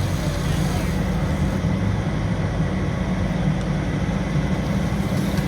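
Large engine running steadily, a low unbroken drone.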